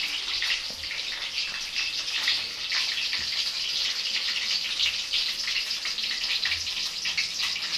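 Food frying in hot oil in a pan: a steady sizzle with fine crackling throughout.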